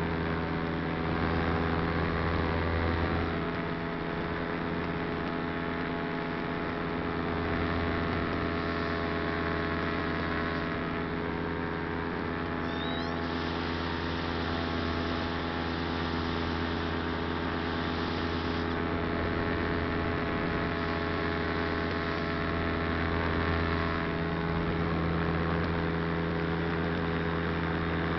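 Motor and propeller of a small camera-carrying model aircraft in flight, running steadily as a constant hum.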